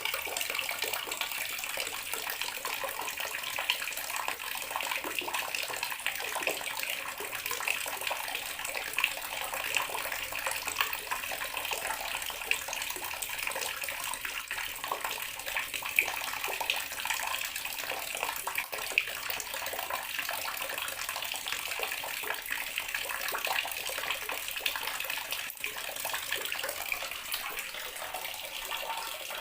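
Bathroom water tap running steadily, the stream splashing into a basin or tub.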